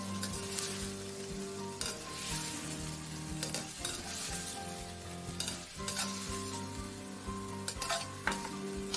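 Scallops sizzling in a hot wok while a metal ladle stirs and scoops them out, with a few scrapes of metal against the wok over a steady hum.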